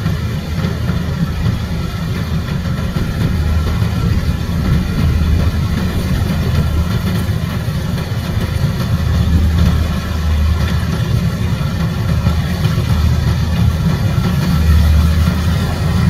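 Small rice combine harvester's engine running steadily as the machine cuts and threshes rice: a low continuous drone with steady machine tones above it, growing a little louder near the end as it comes closer.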